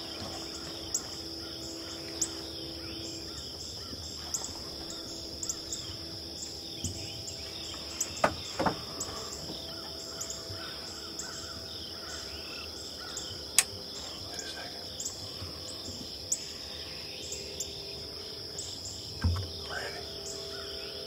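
Evening insect chorus over a field edge: a steady high-pitched drone with short chirps repeating above it. A few sharp clicks stand out, the loudest about halfway through, and a soft thump comes near the end.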